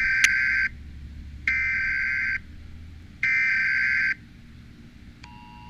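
Emergency Alert System header: three harsh buzzing data bursts, each just under a second long with short gaps between them. Near the end the steady two-tone EAS attention signal begins.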